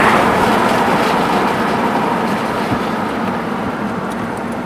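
Steady road and wind noise inside a moving car, easing off slightly over a few seconds.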